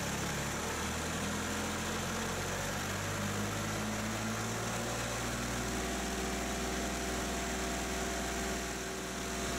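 Kubota compact tractor's diesel engine running steadily, its pitch stepping up about halfway through as the hand throttle is raised toward PTO speed, about 2,500 RPM.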